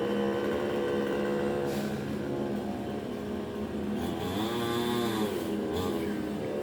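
Chainsaw engine running steadily, revving up and back down once about four seconds in.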